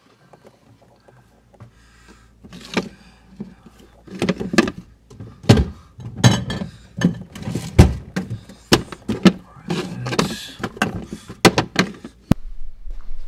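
Food containers, jars and bottles being moved around inside a refrigerator: a run of knocks, taps and thuds with some rustling, ending in a sharp click followed by a steady low hum.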